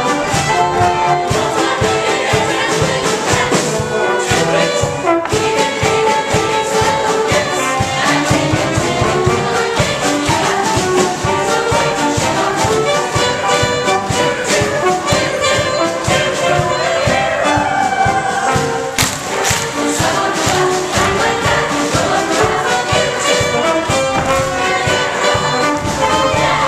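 Upbeat 1920s-style show music for a dance number, played by a band with brass over a brisk, steady beat.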